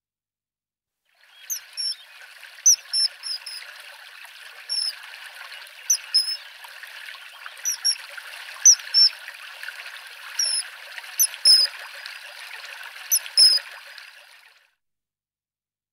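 Common kingfisher calling: repeated short, high calls, often in pairs, over the steady rush of a stream. Starts about a second in and stops about a second before the end.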